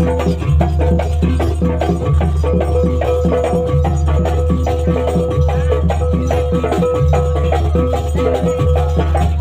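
Music for a Banyuwangi barong dance: dense, fast percussion over a deep sustained bass note that shifts about every second and a half, with a held higher tone above it.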